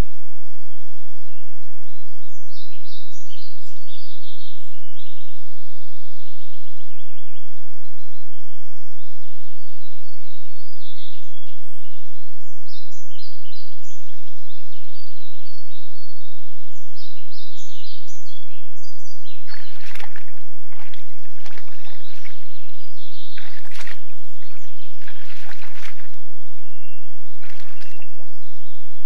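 Small birds singing and chirping in the woods. About two-thirds of the way in, irregular splashing and sloshing starts as moose step through a shallow muddy puddle.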